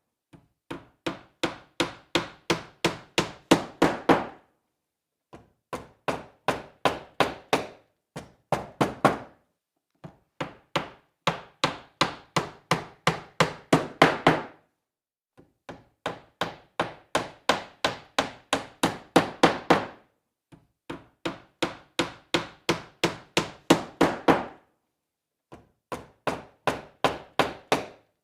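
Hammer driving nails into wood: runs of sharp strikes at about three a second, each run starting softer and growing louder, with short pauses of about a second between runs.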